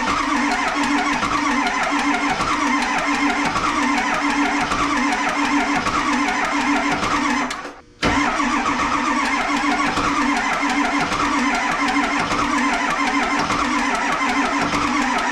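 7.3 L Powerstroke V8 turbo-diesel being cranked over on its starter, with a steady starter whine and an even rhythm of compression strokes. It pauses briefly about eight seconds in, then cranks again, sputtering without catching: a crank-no-start.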